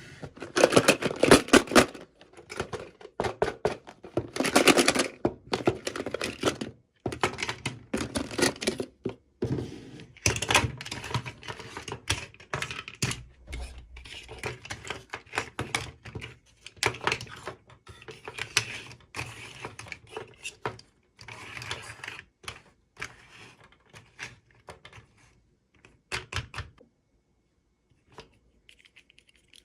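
Small plastic packaging and toy pieces being handled and opened by hand: a busy run of clicks, taps and crinkles that thins out and stops near the end.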